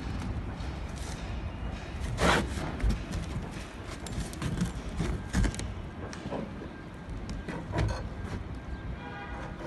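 Concrete blocks being handled and laid: scattered knocks and scrapes of block on block and mortar, the loudest about two seconds in, over a steady low rumble.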